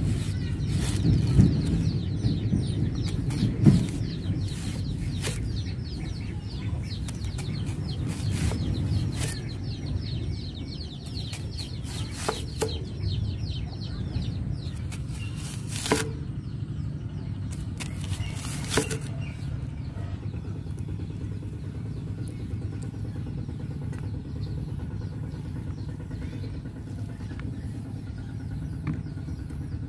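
A cleaver slicing through an onion onto a wooden chopping board: sharp knocks every couple of seconds, thinning out in the last third, over a steady low rumble.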